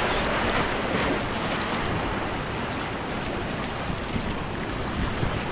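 Steady wash of rough, storm-driven water and breaking surf, with wind buffeting the microphone.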